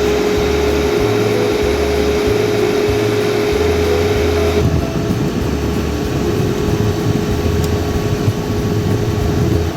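Portable air conditioner running with a steady whirr and a steady hum that fades about halfway through, under background music with a low bass line.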